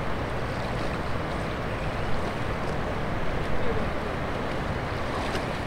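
Steady rushing of turbulent river water in the tailwater below an open dam spillway.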